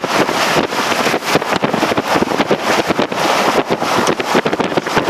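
Wind rushing in through an open car window and buffeting the microphone while the car drives, in rapid irregular gusts, over road noise.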